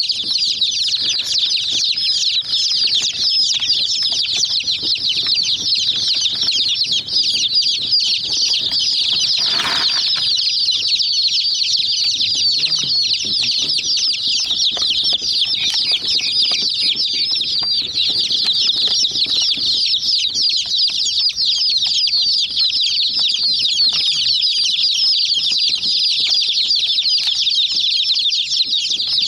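A group of chicken chicks peeping continuously, many short high-pitched chirps overlapping one another. A brief noisy sound cuts across the chirping about ten seconds in.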